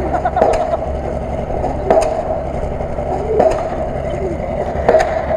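Lada Niva engine running hard with its wheels spinning in deep mud. A steady drone is broken by sharp knocks every second or two. A man's shout is heard briefly near the start.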